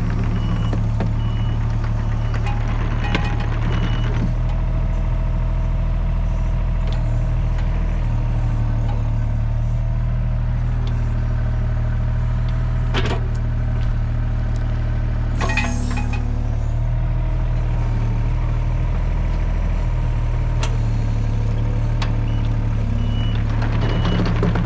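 A heavy machine's engine running steadily, with a reversing alarm beeping near the start and again near the end. A couple of sharp knocks come around the middle.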